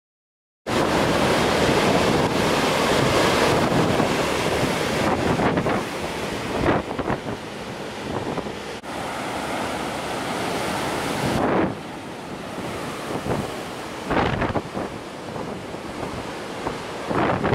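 Storm-force wind buffeting the microphone in loud, uneven gusts. It cuts in suddenly under a second in, eases somewhat about two-thirds of the way through, and gusts up again near the end.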